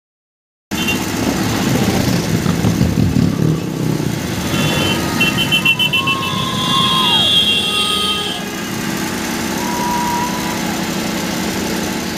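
Motorcycles and cars of a convoy driving past, engines running, with short high tones sounding on and off in the middle.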